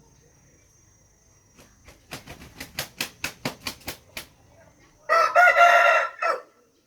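A quick run of about a dozen sharp strokes, some six a second, then one loud, wavering animal call lasting just over a second.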